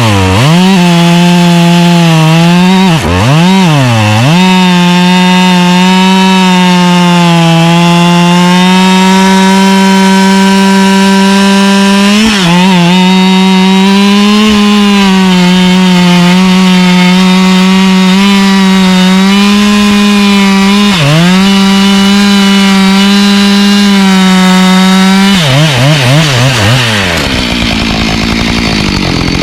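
Husqvarna 572 XP two-stroke chainsaw with its stock muffler, bucking firewood at full throttle. The engine note holds steady under load and dips sharply in pitch several times as the throttle is let off between cuts. Near the end it drops back to a low idle.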